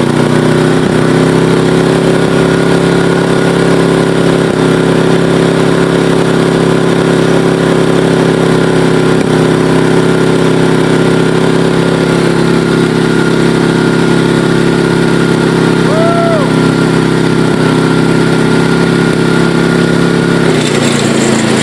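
Lawn tractor's 12.5 hp Briggs & Stratton I/C engine running steadily; its pitch rises slightly just after the start and drops a step near the end.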